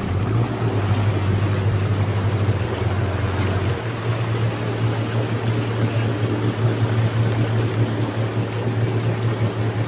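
A four-wheel drive's engine droning steadily under load as the vehicle pushes through water up to its windows, with water surging and rushing around the body. The engine note shifts slightly about four seconds in.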